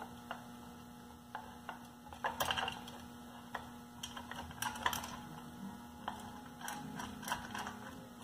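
Faint, irregular small metallic clicks and ticks as 5/16 bolts are threaded by hand through an aluminium adapter plate into an engine's mounting holes, over a low steady hum.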